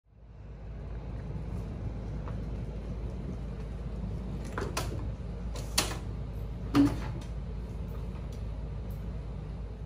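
Steady low room hum, with three sharp clicks and knocks about halfway through, the last a loud clunk. These are a rolling suitcase being parked and a person sitting down at a metal-framed school desk-chair.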